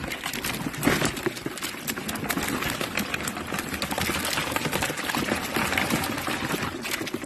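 A trap-load of live redclaw crayfish being tipped into a plastic tub: a dense, steady clatter of many shells and claws knocking against plastic and each other, with water splashing.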